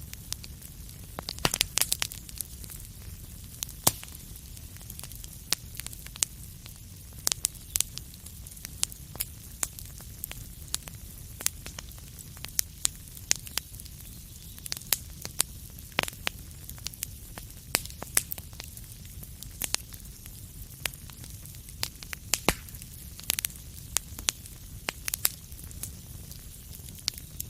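Wood fire crackling in a fireplace: irregular sharp pops and snaps, several a second at times, over a steady low rumble and hiss of burning.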